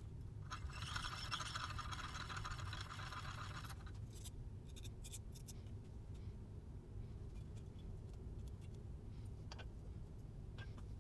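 Hand-cranked piston ring filer grinding the end of a new piston ring: a steady scraping for about three seconds, opening up the ring's end gap. A few light metallic clicks follow as the work stops.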